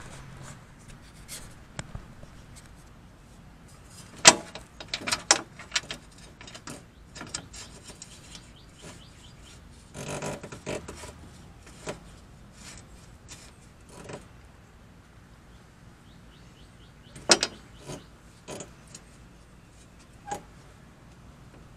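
Bolts and a nut being fitted and hand-threaded onto a metal AC bracket under a car's front end: scattered clicks, taps and short scrapes of metal and hands on parts, loudest in a cluster of sharp clicks about four to six seconds in and again around seventeen seconds.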